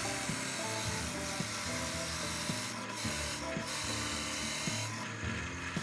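Instrumental background music over a rasping rub of wood being abraded. The rasping pauses briefly a few times.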